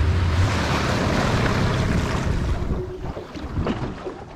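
Small aluminium boat under way: the outboard's low drone fades early on while wind and water rush past the hull, with wind on the microphone. About three seconds in the rush dies down as the boat slows, leaving water slapping and splashing against the hull.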